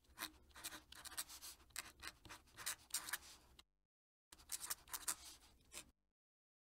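Fountain pen nib scratching across paper in quick cursive strokes as a signature is written. The strokes come in two runs with a sudden cut to silence between them.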